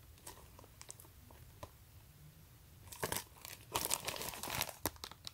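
Clear plastic film wrapped over a boxed wooden toy train crinkling as the box is handled: faint scattered clicks at first, then louder bursts of crinkling from about three seconds in.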